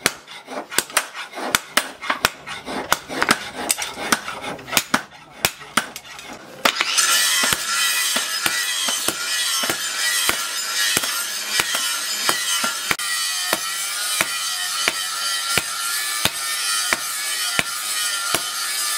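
Hand hammer striking a red-hot steel knife blade on a steel post anvil, a steady run of sharp metallic blows about two to three a second, hammering out the tang of a blade forged from bearing steel. Background music comes in about a third of the way through and runs under the blows.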